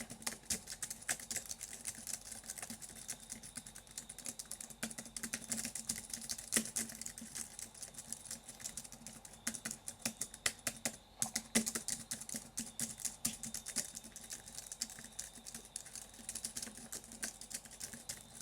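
Rapid, irregular clicking, many clicks a second, with a few louder clicks near the middle.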